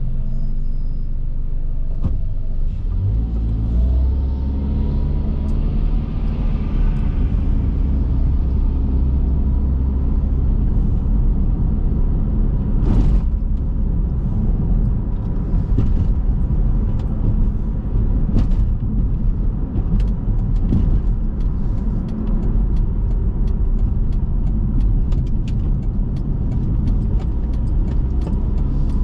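A car driving, with a steady low rumble of road and engine noise. A sharp knock comes about thirteen seconds in, and light scattered clicks follow through the second half.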